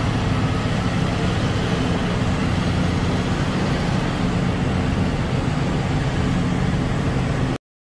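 Heavy mining machinery, haul dump trucks and a large hydraulic excavator, running with a steady low drone of big engines; the sound cuts off abruptly about seven and a half seconds in.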